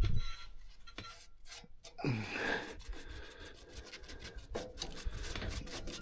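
Sawdust rubbed and scraped over a steel sawmill track by hand to gather up metal chips from drilling, an irregular scratchy rubbing with many small clicks.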